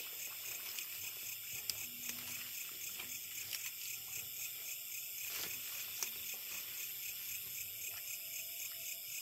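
A steady chorus of insects, high-pitched and pulsing evenly, with a few faint clicks and rustles as water hyacinth is handled.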